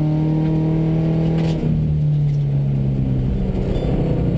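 Subaru rally car's flat-four engine heard from inside the cabin, held at steady revs at speed. About a second and a half in, the driver comes off the throttle and the note drops and turns rougher as the car slows.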